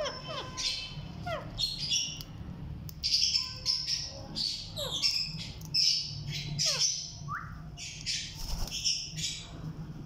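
Alexandrine and Indian ringneck parakeets giving repeated short, high squawks and chirps, with a few falling whistle-like calls among them.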